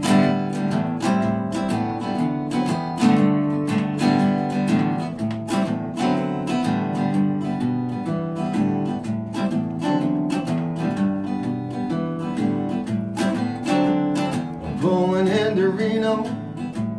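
Solo acoustic guitar strummed in a steady rhythm, playing the instrumental intro of a country song.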